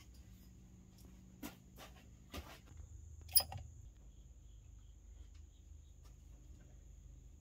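A few scattered knocks and clatters as someone moves about and handles things in a cluttered garage workshop, the loudest a sharp knock about three and a half seconds in, over a faint steady hum and a thin high whine.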